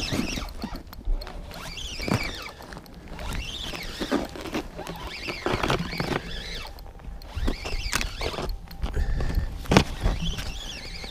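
Spinning reel being cranked in short bursts every second or two during a jig retrieve, each burst a whirring squeak that rises and falls, with a few knocks of handling.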